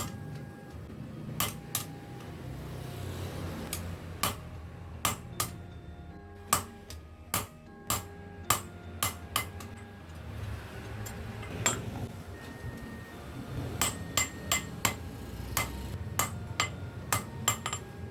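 Hand hammer striking steel on an anvil in irregular groups of blows, each ringing briefly, over a steady low rumble; the sickle blade being forged.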